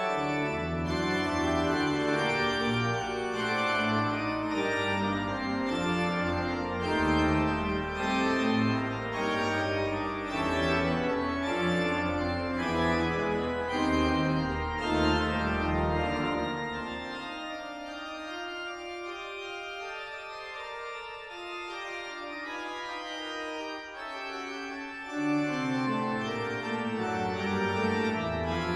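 Pipe organ playing full sustained chords over deep pedal bass notes. A little past halfway the pedal bass drops out and the organ plays more quietly on the manuals alone, then the fuller sound with pedal bass comes back a few seconds before the end.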